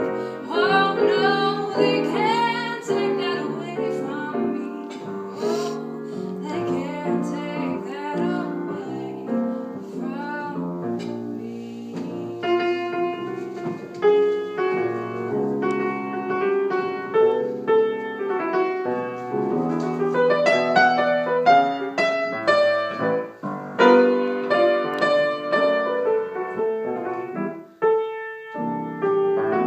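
Piano music, with a woman's voice singing a wavering, wordless line over it in the first few seconds before the piano carries on alone.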